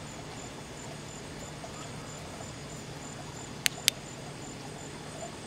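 Two sharp clicks close together about three and a half seconds in, a flashlight's push-button switch being pressed. Under them, insects chirp with a faint, high, evenly repeating pulse.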